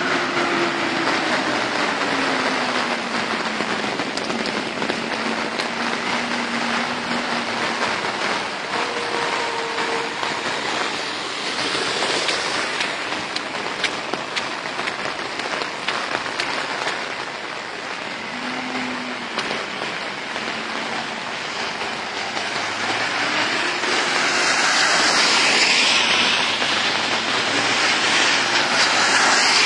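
Heavy rain pouring down in gusty wind, a dense steady hiss, with cars swishing past on the wet road; it swells louder about twelve seconds in and again over the last few seconds.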